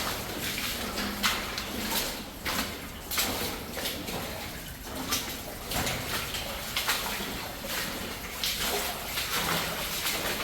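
Footsteps wading and splashing through shallow water in a flooded mine adit, an irregular splash every second or so.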